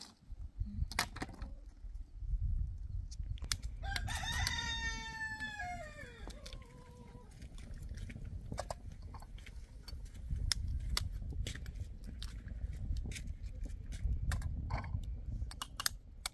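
A rooster crowing once, about four seconds in and lasting roughly three seconds, its pitch dropping at the end. A low rumble and scattered clicks and taps run underneath.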